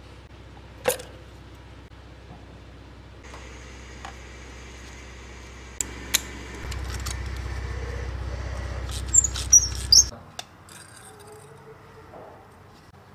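Metal hand tools clicking and clinking in the spark plug wells of a Volkswagen EA888 engine, with a sharp cluster of clinks shortly before a steady low machine hum stops. The hum gets louder for a few seconds past the middle and cuts off about ten seconds in.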